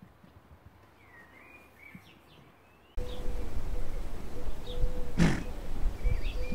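Faint birdsong, then about halfway through the sound jumps louder: wind rumbling on the microphone, a steady hum that breaks on and off, and more birds chirping, with one short loud burst of noise about two seconds later.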